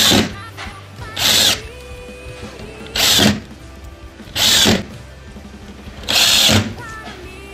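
Cordless drill-driver driving screws through a metal corner bracket into the board frame, run in five short bursts about a second and a half apart.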